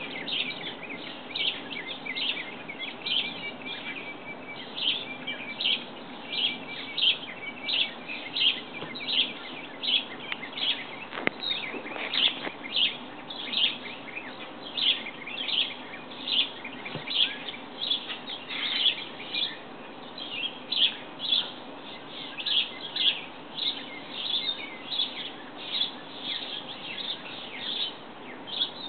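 A bird chirping over and over in a steady rhythm, about one short high chirp a second, with a faint quick trill from another bird early on.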